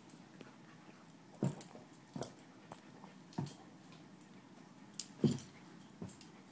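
A dog pawing and nosing at a laser dot on the carpet: several short, sudden thuds and snuffles at uneven intervals, the loudest about five seconds in.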